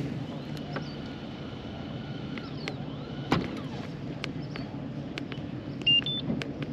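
Small electric boat motor running with a steady hum and a faint whine, with scattered light clicks and two brief high beeps near the end.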